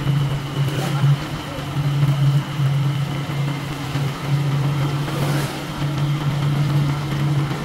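A vehicle engine running steadily while travelling along the road, a low, even hum, with brief rushes of noise about one and five seconds in.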